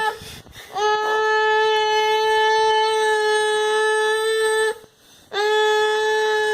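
A child voicing the make-believe motor of a toy vacuum cleaner: one long, steady, high-pitched note held for about four seconds, a short breath, then held again.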